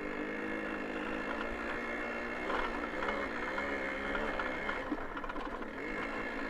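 Babetta 210 moped's small two-stroke single-cylinder engine running under load as it pulls up a hill on a dirt track. The note is fairly steady, wavering slightly midway.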